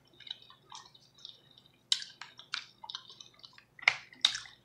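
Close-up wet chewing of tender beef neck bone meat and noodles: soft squelches, then a string of sharp, wet lip smacks from about two seconds in, the loudest near the end.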